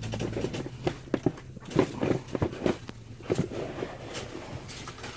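Irregular clicks, knocks and rustling from plastic rodent tubs and their bedding being handled on a rack, under a faint steady hum.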